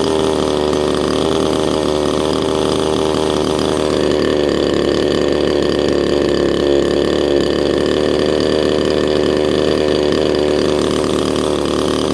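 Chinese 62cc two-stroke chainsaw engine, fitted with a hollowed-out muffler, running steadily at a constant speed. Its carburettor has just been richened half a turn during tuning.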